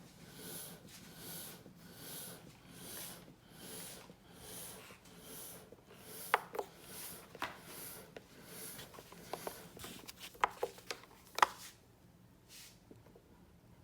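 Rhythmic puffs of air, about one every three-quarters of a second, fading out around nine seconds in, with a scatter of sharp clicks from about six seconds in.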